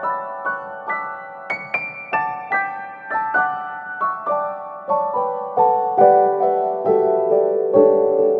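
Background music: a gentle piano-like melody of single notes struck a few times a second, each fading away.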